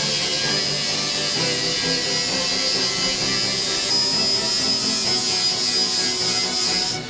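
Background music over a steady high whine and hiss from a power tool, which cuts off sharply near the end.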